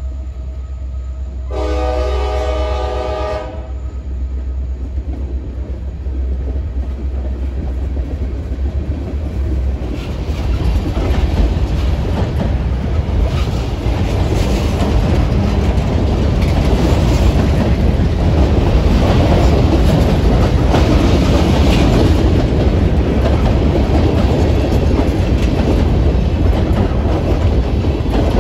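Norfolk Southern freight train passing: the diesel locomotive's air horn sounds one short chord about two seconds in, then the engine rumbles and the cars' wheels clatter over the rails, growing louder from about ten seconds in and staying loud.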